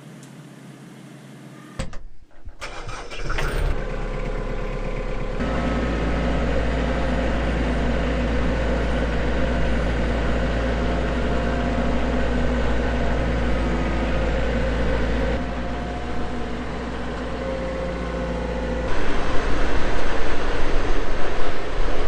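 A compact tractor's diesel engine comes in suddenly about two seconds in and runs steadily under load as the front-loader tractor works the dirt, with a deep low rumble. Near the end the sound turns rougher and louder.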